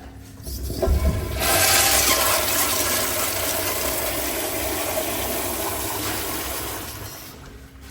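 American Standard Afwall wall-hung toilet flushing: a low thump about a second in, then a loud rush of water that eases off near the end.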